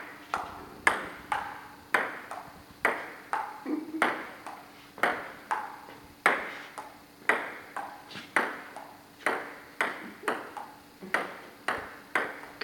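Table tennis ball in a slow, steady rally: the plastic ball clicking off the paddles and bouncing on the table, about two knocks a second.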